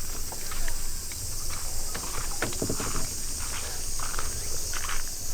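Footsteps crunching along a campground path, irregular short scuffs, over a steady high drone of insects and a low rumble of wind on the microphone.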